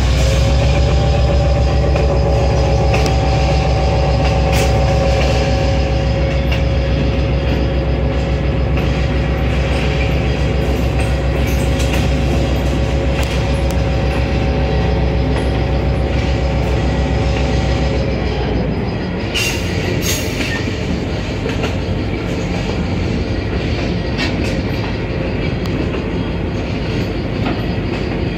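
Passenger train running on steel rails, heard from aboard a coach: a heavy steady rumble with a steady wheel-flange squeal as the train rounds a curve. Both the squeal and much of the rumble fall away about two-thirds of the way through, and a few sharp clicks follow.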